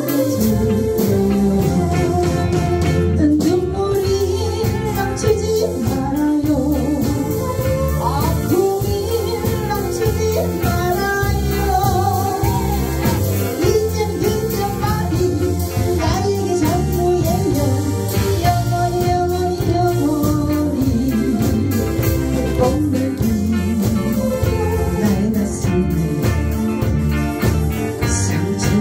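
Live band playing a Korean trot song: a woman singing through a microphone over drum kit, electric guitar, bass guitar and keyboard, with a steady beat.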